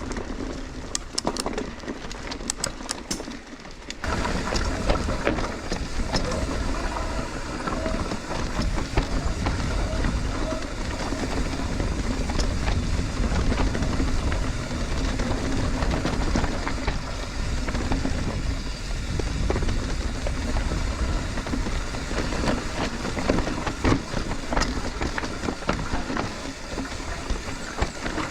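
Mountain bike being ridden over rough trail: a steady rumble of tyres and rattling with scattered clicks. It is quieter with a few sharp clicks at first, then louder from about four seconds in.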